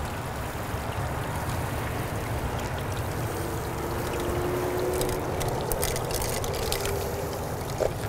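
Shelled sunflower seeds poured from a foam cup into a turned wooden bird-feeder hollow, a steady trickling hiss of seeds landing on the wood and on each other, with sharper ticks in the middle of the pour. A faint tone rises slowly in the background from about halfway.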